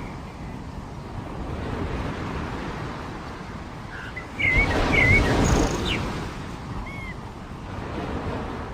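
Surf washing onto a beach, with a louder wave surging in about halfway through. Over it, a few short bird chirps, one of them a quick upward sweep.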